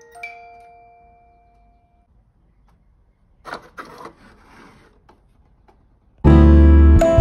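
A quartz mantel clock's chime melody ends on a last bell-like note that rings out over about two seconds. A brief rustle of hands at the clock's small drawer comes a few seconds later. Loud acoustic-guitar background music starts near the end.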